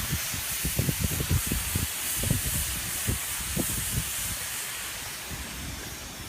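Steady high hiss of polyurethane roofing coating being sprayed, with irregular low thuds under it, most of them in the first few seconds.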